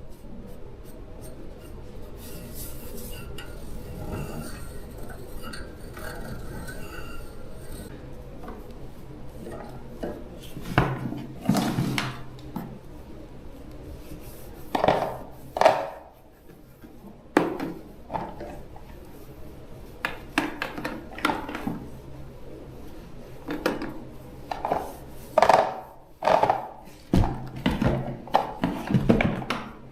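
Hard objects clinking, knocking and scraping as they are handled, in irregular clusters that grow busier in the second half, over a steady low hum.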